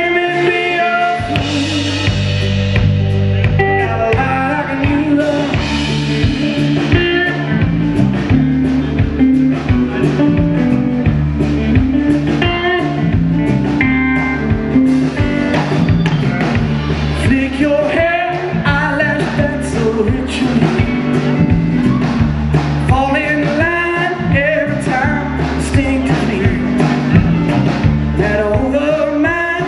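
Live blues band playing a slow blues song on electric guitars, electric bass, keyboards and drums, with a steady bass line and regular drum hits under guitar lines.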